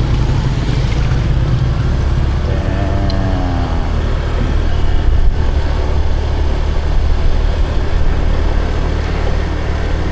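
Steady low engine and road rumble of a moving motor vehicle, with a faint wavering voice-like sound about three seconds in.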